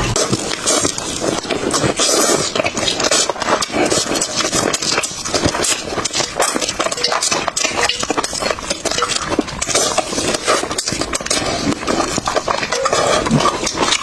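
Close-miked chewing of crisp fried food: a dense, continuous stream of crackly crunching clicks.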